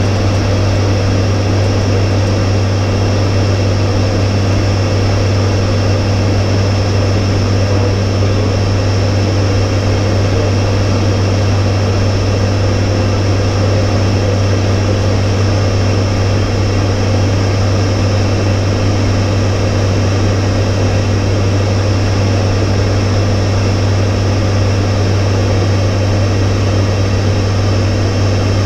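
ATR 72-500 twin-turboprop airliner in flight, heard from the cockpit: its Pratt & Whitney PW127 engines and six-blade propellers give a loud, steady drone with a deep even hum over a rushing hiss.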